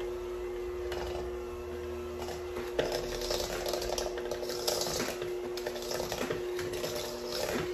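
Raw ground turkey being stirred and worked in a large bucket: irregular scraping and stirring noises, with a steady hum underneath.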